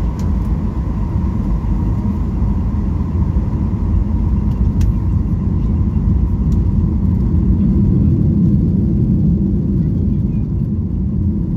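Steady cabin noise inside a Boeing 737-800 on descent: a low rumble of its CFM56 engines and the airflow over the fuselage, with a faint steady high tone.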